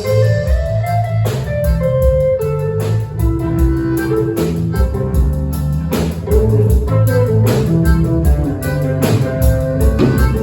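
A live band playing an instrumental passage: guitar over bass and a drum kit keeping a steady beat.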